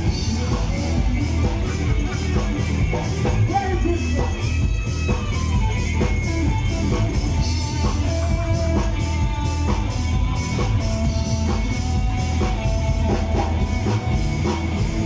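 Rock band playing a song: a drum kit keeps a steady beat under guitars.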